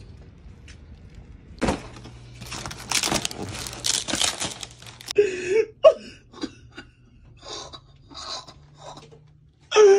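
Plastic shrink-wrap and cardboard rustling and tearing for a couple of seconds. From about five seconds in, a dog whines in a run of short high calls.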